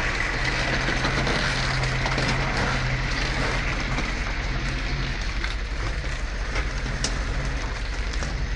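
Heavy machinery running steadily: a low engine drone under a constant hiss, with no cutting or impacts standing out.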